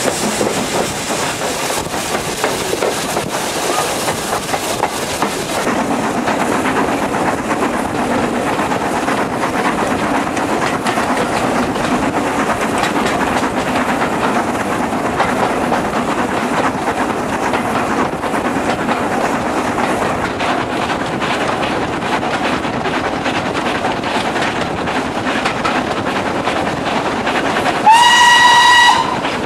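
Steam-hauled train running, heard from a carriage window: a steady rumble and rattle of the locomotive and coaches on the rails. Near the end the steam locomotive's whistle sounds once, briefly, rising into a steady note and standing out as the loudest sound.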